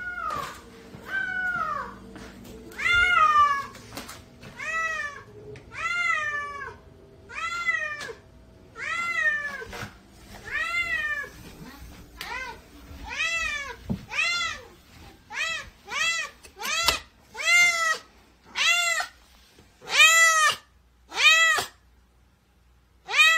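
Domestic cat meowing over and over, about one meow a second. Each meow rises and falls in pitch. In the second half the meows come quicker and louder.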